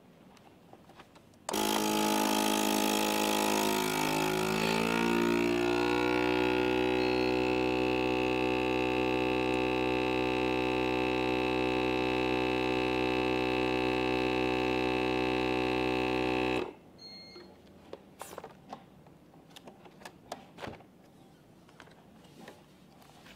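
The 110 W vacuum pump motor of a 3A110W countertop vacuum sealer starts abruptly and runs as a loud hum, drawing the air out of a bag of meat. Its sound wavers and shifts for the first few seconds, then settles into a steady hum. It cuts off suddenly about 15 seconds later, and a few light clicks and rustles follow as the lid is opened.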